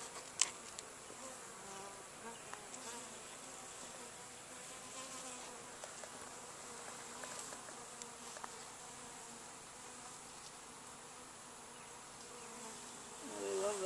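A honey bee colony buzzing steadily around its hive, with one sharp knock about half a second in.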